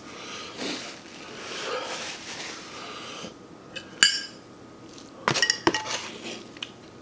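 Metal fork clinking against the dishes while noodles are lifted with the fork and a wooden spoon. There is one sharp, ringing clink about four seconds in, then a quick run of clinks about a second later.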